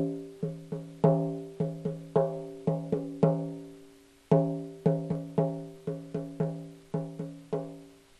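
Instrumental theme music: a short tune of struck notes, each starting sharply and ringing out, in two phrases with a brief pause about four seconds in.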